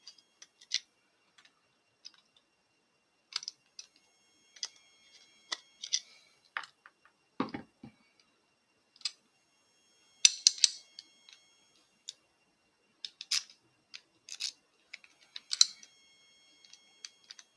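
Scattered sharp metal clicks and light clinks, some ringing briefly, from a Mul-T-Lock Integrator padlock being handled and worked by hand, with a quick run of clicks about ten seconds in.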